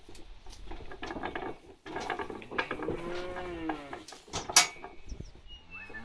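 A young heifer mooing once, one long call, among scattered knocks and clatter of cattle coming off a wooden livestock trailer. A single sharp bang, the loudest sound, comes about four and a half seconds in.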